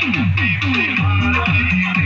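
Loud music played over a big sound-box loudspeaker system, with a plucked-string melody and repeated notes that slide downward in pitch.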